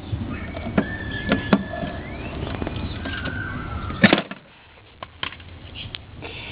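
A few scattered clicks and knocks, the loudest about four seconds in, over a low background rumble, with faint brief whistling tones. No alarm is sounding.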